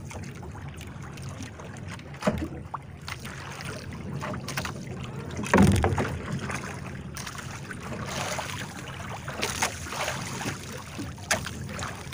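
Steady low drone of an outrigger boat's engine, with water washing along the hull and outrigger and wind on the microphone. There is a loud knock about five and a half seconds in and a few lighter knocks.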